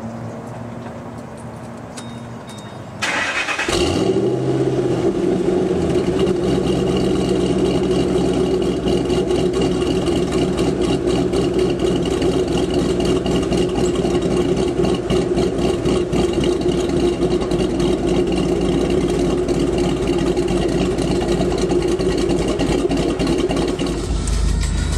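Ford Mustang GT's 4.6-litre V8 started: a short crank about three seconds in, then the engine catches and idles steadily through the dual exhaust with a low rumble. Near the end a deep bass comes in.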